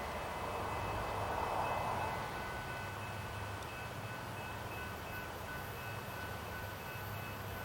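Train rumbling at a distance, with a noisy swell a second or two in and several steady high ringing tones over it.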